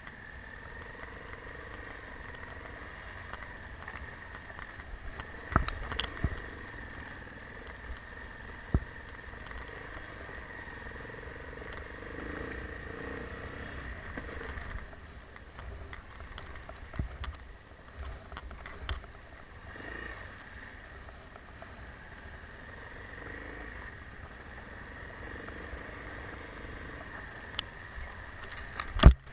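Enduro motorcycle running at low speed over a bumpy snow-covered track, a steady engine hum broken by a few sharp knocks from the bike jolting over bumps, the loudest just before the end.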